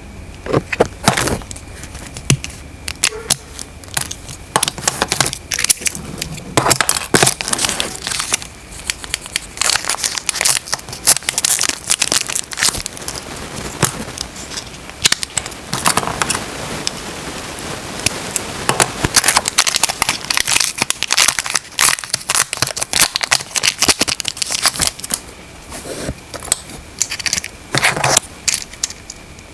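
Packaging being handled and opened: plastic wrap and paper crinkling and tearing, with many irregular rustles and clicks.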